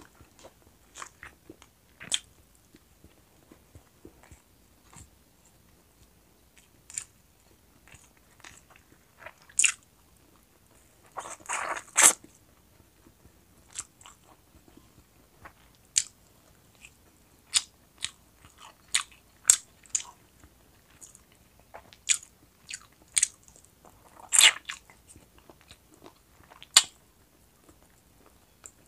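Close-miked eating: a person biting and chewing roast chicken wings, with frequent sharp mouth clicks and two louder crunchy bites, about twelve seconds in and again about twenty-four seconds in.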